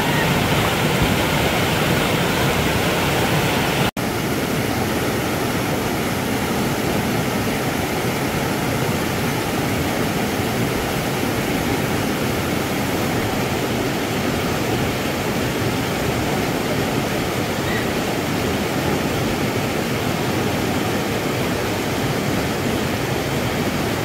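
Mountain stream water rushing and churning over large rock slabs in a small cascade: a steady whitewater rush, broken by a momentary dropout about four seconds in.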